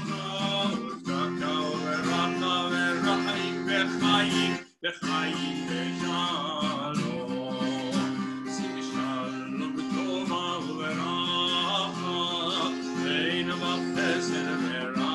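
A man singing to his own strummed acoustic guitar, a steady chord accompaniment under the melody. The sound cuts out for an instant about five seconds in.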